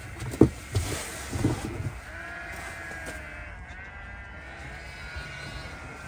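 Sheep bleating in long, drawn-out calls, after a few knocks and thumps in the first two seconds.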